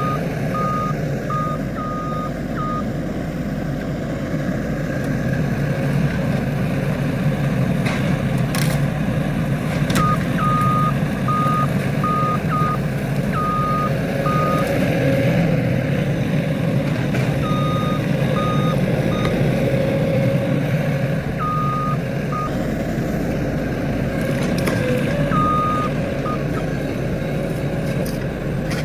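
Skid steer loader's engine running steadily while its reversing alarm beeps in short spells as the machine backs up, several times over; a couple of sharp knocks sound in between.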